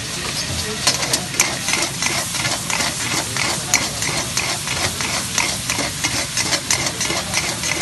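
Flat metal spatula rapidly scraping and stirring chicken in sauce around a metal wok, several scrapes a second starting about a second in, over a steady sizzle of frying.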